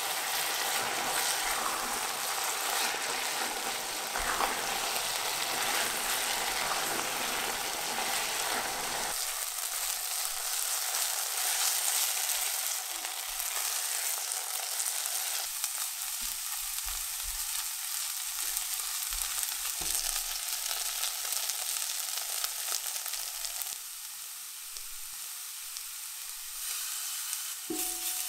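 Sliced onions sizzling in oil and butter in a pot, stirred and scraped with a silicone spatula as their moisture cooks off and they caramelize. The sizzle changes abruptly a few times.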